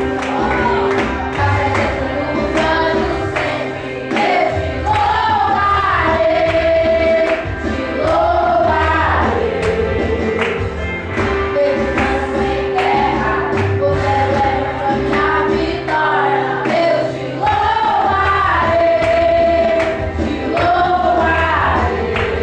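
Music: a choir singing a gospel-style song over instrumental backing with bass and a steady beat.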